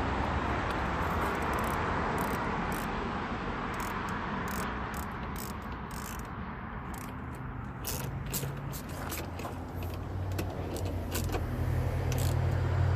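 Scattered small metallic clicks and light rattles of hand tools and fasteners being handled, over a steady background rumble with a low hum that grows louder near the end.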